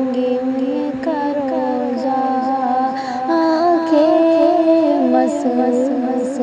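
Naat music between verses: a wordless vocal melody of long held notes that step slowly up and down in pitch.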